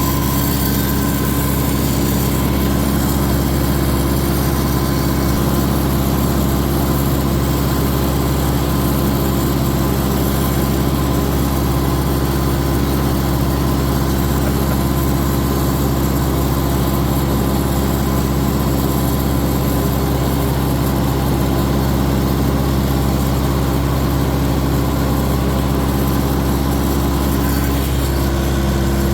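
Tractor engine running at a steady speed, a constant low hum with no revving or change in pitch.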